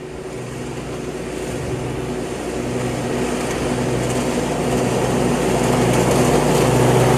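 Zero-turn riding mower's engine running steadily as the mower drives closer, growing gradually louder.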